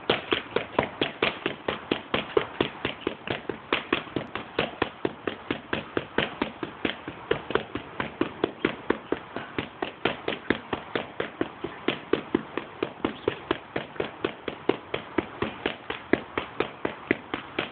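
Boxing gloves smacking into leather focus mitts in a fast, even run of punches, about three or four a second.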